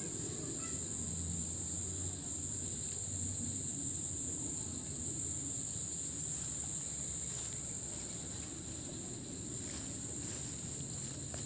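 A steady chorus of insects, one continuous high-pitched buzz, over a low rumble.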